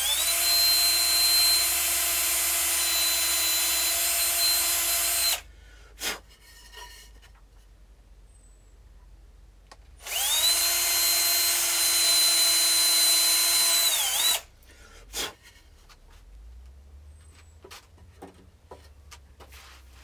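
Power drill run twice, about five and four seconds each, with a steady high whine; it sags in pitch just before the second run stops. Light knocks and clicks come between the runs.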